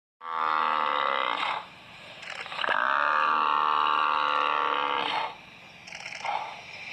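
Cape buffalo bellowing in distress under a lion's bite: two long, drawn-out calls, the second about twice as long as the first.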